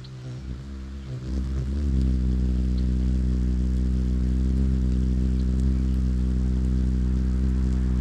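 Male ruby-throated hummingbird's wings humming as it hovers at a feeder close to the microphone. The low, steady hum comes in about a second in, wavers briefly as the bird arrives, then holds even.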